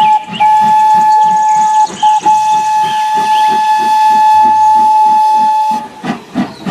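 Steam whistle of a full-size Thomas the Tank Engine steam locomotive blowing long, steady blasts. It breaks briefly about a quarter second in and again near two seconds in, then stops about six seconds in. Under it runs an even chuffing of about four beats a second as the locomotive moves along the track.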